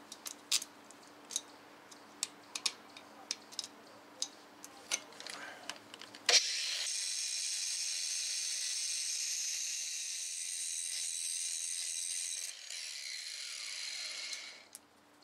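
Sharp metal clinks as a wheel hub assembly is handled. About six seconds in, an angle grinder with a cut-off wheel starts abruptly and cuts the ends off the hub's protruding mounting bolts with a steady, high-pitched grinding. It winds down near the end.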